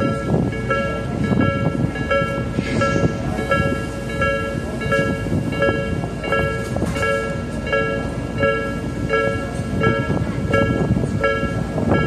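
Japanese level-crossing warning bell ringing steadily, its two-tone electronic ding repeating about three times every two seconds, over a low rumble.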